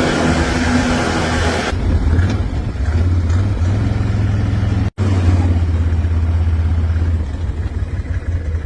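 Vehicle engine running steadily with a low hum, as a vehicle is driven over to tow a mower stuck in mud.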